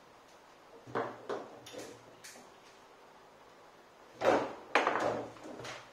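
Foosball table in play: hard knocks of the ball being struck by the plastic men, bouncing off the table walls and the rods clacking. A few knocks come about a second in, then a louder cluster from about four to five and a half seconds.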